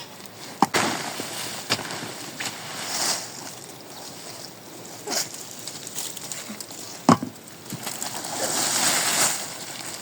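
Water splashing and sloshing, with several sharp knocks at irregular intervals and a swell of hissing splashing near the end.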